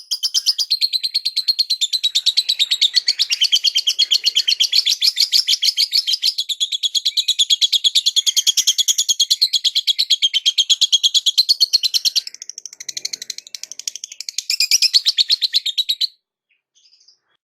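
Lovebird giving a long, fast, unbroken chattering trill of rapid high chirps, the drawn-out 'ngekek' song used to stir other lovebirds into singing. It falters about twelve seconds in, picks up again, then stops suddenly.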